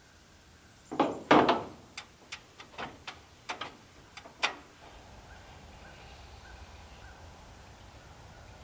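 Metal knocks and clanks from work on a stovepipe at the top of an aluminium ladder against a metal roof: two loud rattling knocks about a second in, then a run of sharper single taps over the next three seconds.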